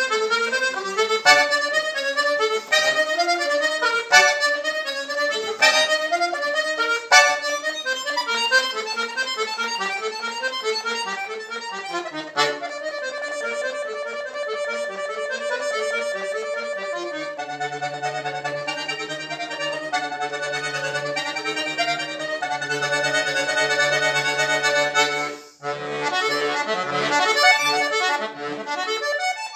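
Solo chromatic button accordion (bayan) playing: fast runs of notes at first, then sustained chords over a held bass from a little past halfway, with a momentary break about four seconds before the end.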